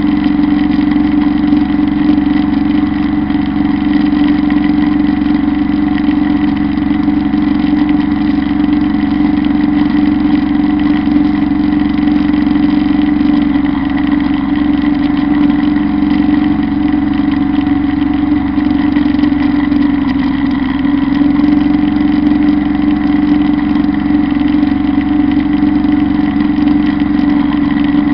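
Kubota Bulltra B1-17 compact tractor's diesel engine running steadily at working speed while it drives a Zanon rotary drum mower cutting grass for hay.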